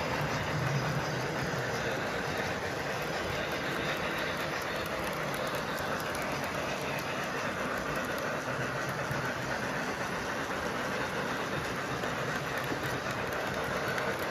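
Lionel Legacy 2-6-0 Mogul O-scale model steam locomotive running steadily at slow speed, its train sound holding even throughout.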